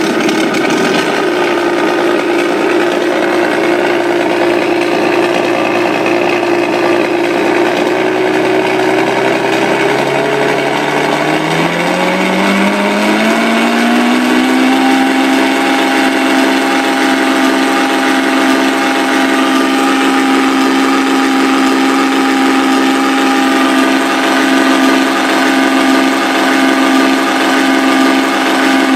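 Benedini electronic sound system in an electric RC Me109F playing its simulated aircraft-engine sound through speakers. It runs steadily at a lower pitch, rises smoothly from about ten seconds in as the throttle comes up, then holds steady at the higher pitch.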